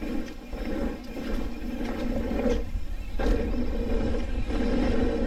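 Mountain bike riding on a dirt trail: wind rushing over the microphone and tyres rumbling, with a short break about three seconds in and growing louder toward the end.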